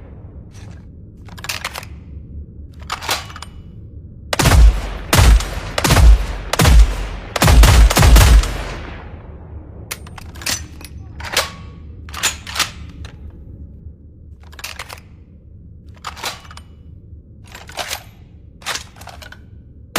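Fieldmaster HR-10 rifle's gunshot sound effect firing, a quick run of six loud shots about four to eight seconds in, with quieter sharp clicks or pops before and after.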